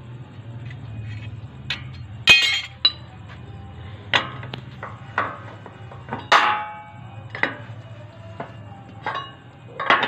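Steel-on-steel clanks and clinks from a hand-lever iron cutting shear and the steel sheet it is cutting: about eight irregular sharp strikes, a couple ringing briefly, over a steady low hum.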